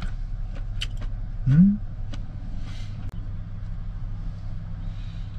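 Steady low rumble inside a parked van, with a few light clicks of chopsticks against dishes. About a second and a half in, a short rising hum is the loudest sound.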